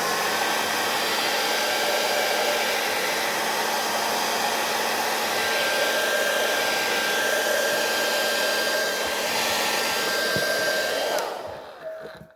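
Heat gun blowing hot air to activate the contact cement on boot soles before they are pressed together. It spins up with a rising whine at the start, runs steadily, then winds down and stops near the end.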